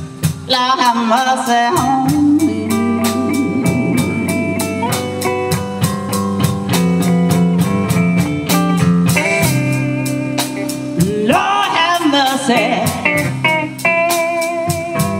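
Live band playing: a woman sings over electric guitar, bass guitar and a drum kit keeping a steady beat. Her vocal lines come near the start and again about two-thirds of the way through, with the instruments carrying on between.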